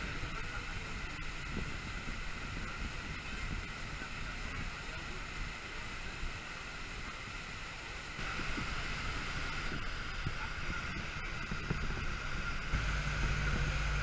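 Boat underway: steady engine noise and rushing water from the wake, with wind on the microphone. It gets louder about eight seconds in.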